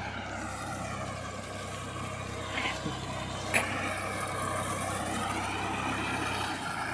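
Tractor engine running steadily as the tractor works a flooded rice paddy, a constant low hum. A single sharp click about halfway through.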